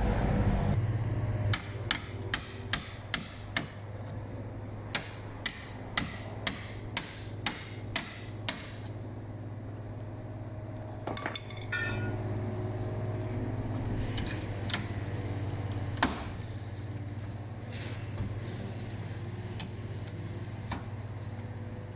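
Hammering knocks on a plywood shipping crate: a quick run of about two sharp blows a second for several seconds, then a short rattle and a few scattered single knocks, as the plywood is knocked off to get at the tool cabinet inside. A steady low hum runs underneath.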